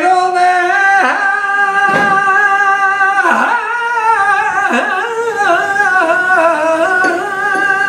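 A man singing flamenco, drawing out one long, wavering melismatic phrase on a single vowel without a break.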